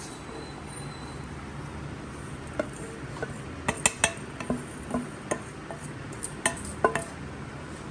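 Kitchen utensils knocking and clicking against a non-stick pan as dry peanut-jaggery powder is tipped in and mixed with roasted nuts and seeds. The knocks come in a run of light, irregular clicks from about two and a half seconds in.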